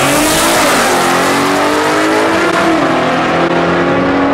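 Mustang 3.7 V6 accelerating hard down a drag strip, engine note climbing steadily in pitch as it pulls away, with brief dips near the start and about two and a half seconds in as the automatic shifts up.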